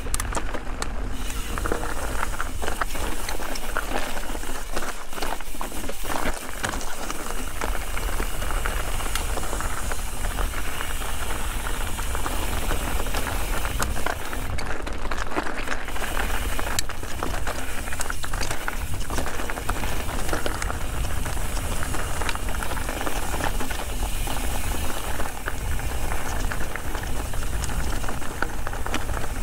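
Ibis Ripmo v2 full-suspension mountain bike descending rocky trail at speed: steady rushing wind noise on the microphone, with the tyres crunching over loose rock and the bike clattering and rattling over the chunk.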